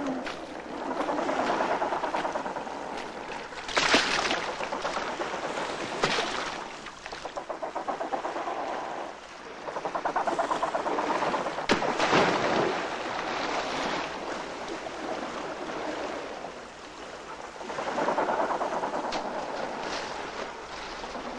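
Penguins calling in harsh, pulsing bouts of a few seconds each, over sea water splashing and washing. Sharp splashes come about 4 seconds in and again about 12 seconds in.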